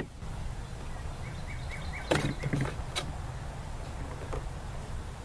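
A few knocks and clinks of metal engine parts, valves from a cylinder head, being handled and set down on a table. The loudest knock comes about two seconds in and a sharper clink about a second later, over a low steady rumble. A bird chirps a quick run of notes about a second in.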